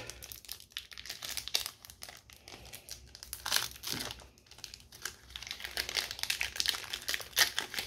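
A foil trading-card booster pack wrapper being torn open across the top and crinkled in the hands: a dense run of sharp crackles.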